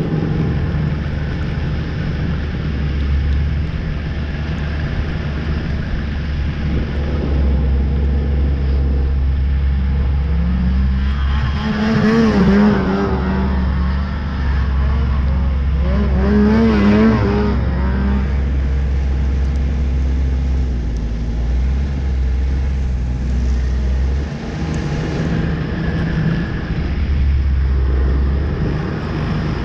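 Snowmobile engine heard from on board while riding, running steadily, with the pitch rising and wavering twice, about twelve and seventeen seconds in.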